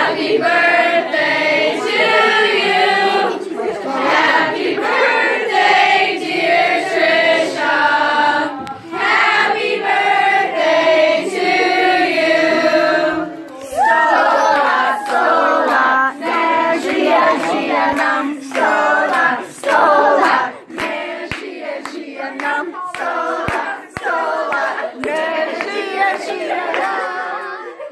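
Group of people singing together for about the first thirteen seconds, then lively overlapping chatter and laughter with several sharp clicks.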